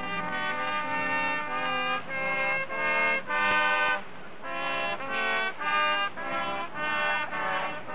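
Background music: a melody of short held notes in quick phrases, with a brief dip about four seconds in.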